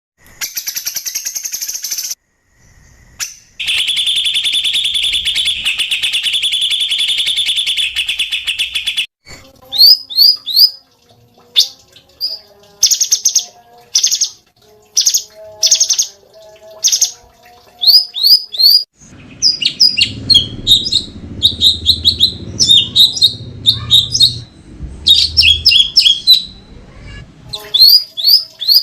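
Cucak cungkok songbird singing: a short rapid buzzy trill, then a longer one lasting about five seconds, followed by a run of sharp chirps and quick rising whistled notes. A low rumble sits under the calls for a few seconds about two-thirds of the way through.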